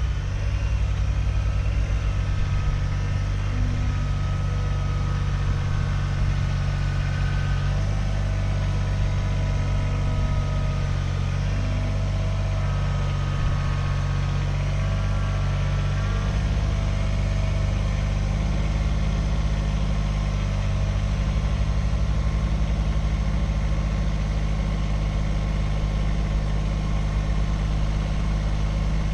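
Kubota BX25 sub-compact tractor's three-cylinder diesel engine running steadily, with a higher whine that comes and goes through the first half.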